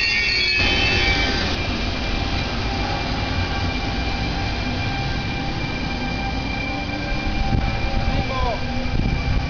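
Trenitalia E464 electric locomotive departing with a regional train: a steady low rumble with a faint whine that rises slowly in pitch as it gathers speed.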